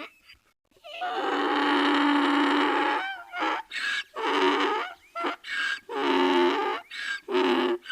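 Donkey braying: one long harsh call of about two seconds, then a run of shorter hee-haw calls alternating high and low.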